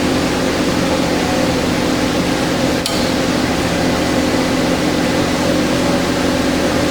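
Steady electric motor and gear-drive hum from a welding positioner running, with several steady low tones, and a single sharp click about three seconds in.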